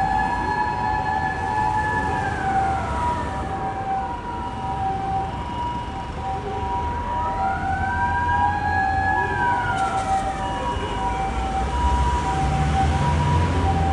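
Japanese ambulance's two-tone hi-lo siren alternating steadily, overlapped by a police car's wailing siren that falls about two seconds in, rises again around seven seconds and falls near ten seconds, over a low traffic rumble.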